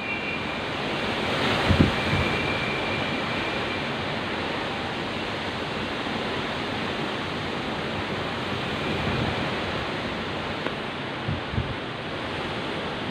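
Heavy rain pouring steadily in strong wind, a constant dense hiss. A few short low thuds, about two seconds in and twice near the end.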